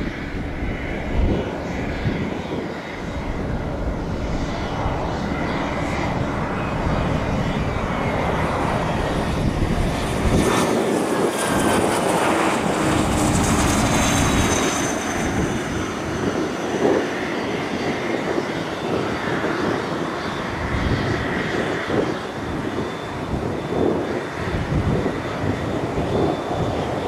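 Cessna 680 Citation Sovereign business jet landing: the steady noise of its twin turbofan engines as it comes in low and touches down, with a high turbine whine that slowly falls in pitch about halfway through.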